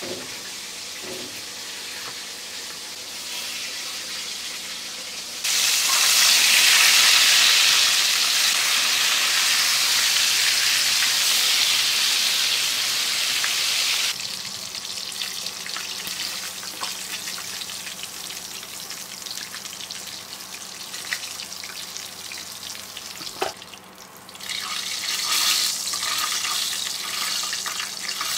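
Breaded chicken thigh fillets frying in hot oil in a pan, a steady sizzle. The sizzle turns much louder about five seconds in, eases back around fourteen seconds, and swells again a few seconds before the end.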